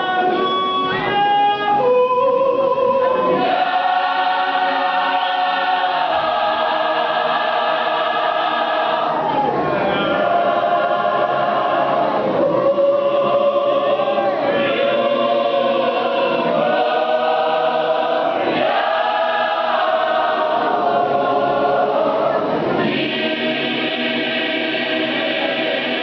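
Mass gospel choir singing in harmony with long held notes. A single voice line carries the first couple of seconds before the full choir comes in.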